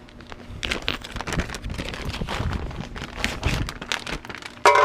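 Metal parts being handled, with rapid irregular clicks and knocks as hitch balls and three-point hitch arm parts are worked into place. One louder, ringing clank comes near the end.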